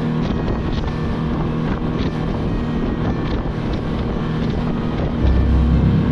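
Motorboat underway at speed: a steady engine drone mixed with wind on the microphone and water rushing past the hull. About five seconds in, a deeper low rumble comes in and the whole sound gets louder.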